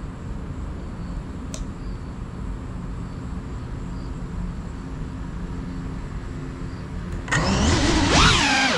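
Quiet outdoor background with a single click about a second and a half in. Near the end, the motors of a Cinelog35 cinewhoop FPV drone throttle up sharply into a loud whine and propeller rush that rises and falls in pitch as the drone lifts off.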